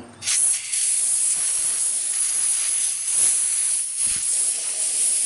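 Compressed-air blow gun hissing steadily as it blasts ether and fine metal particles out from around the drain magnet of a differential cover. The hiss starts about a quarter second in.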